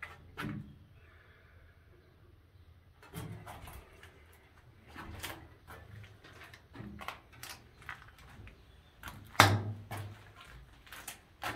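Irregular footsteps and clunks on the steel floor plates of an engine room, with one loud bang about nine seconds in.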